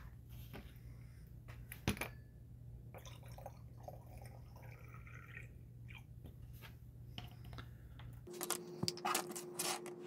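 Small clicks and light taps of bottles and small tools being handled on a hobby bench, over a low steady hum; a sharp click about two seconds in, and near the end the hum gives way to a steady higher tone and a flurry of louder clicks.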